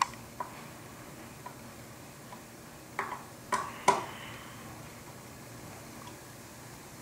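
Small screwdriver tightening the screws of a curtain-track connector: scattered light clicks and ticks of the tool on the screws and track, with a few sharper knocks about three to four seconds in.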